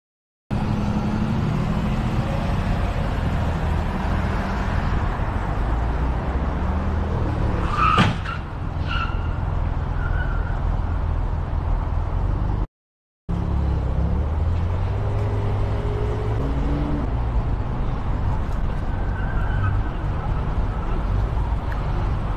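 Steady road and engine noise of a car driving on a highway, heard from the car's dashcam, with one sharp knock about eight seconds in followed by brief tones. After a moment of silence, steady street traffic noise takes over.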